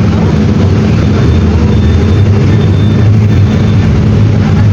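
Mercedes-Benz OF-1721 BlueTec 6 bus's OM-924 LA four-cylinder inline diesel engine running at a steady speed, loud and even.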